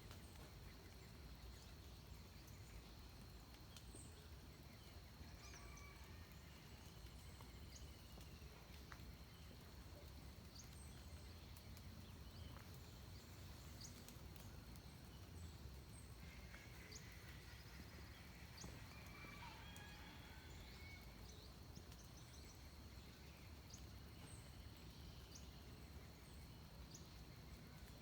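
Faint dawn birdsong in forest: scattered short, high chirps from distant birds, with a few longer calls about two-thirds of the way in. Under them runs a steady high-pitched hum and a low rumble.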